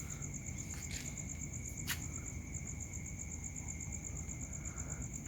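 Crickets trilling steadily: a high, rapidly pulsing chirr with a second, lower steady insect tone under it. Two brief clicks come about one and two seconds in, over a low background rumble.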